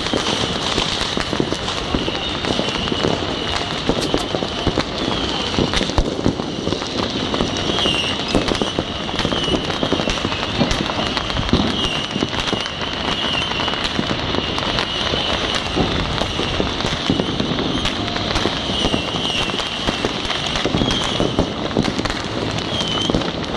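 Many fireworks and firecrackers going off at once, a dense unbroken crackle of pops and bangs with no pause.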